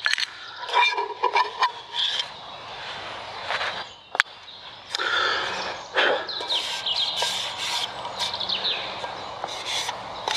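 Camping gear being handled: clicks and clinks of a metal mug and its lid and of plastic tablet tubes, with bursts of rustling and one sharp snap about four seconds in.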